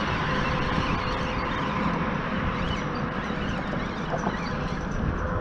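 Steady rush of road traffic crossing the bridge, an even noise with no single vehicle standing out.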